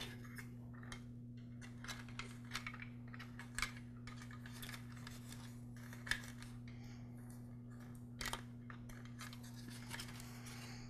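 Faint, scattered small clicks and rustles of insulated wires being threaded through a plastic saw handle, over a steady low hum.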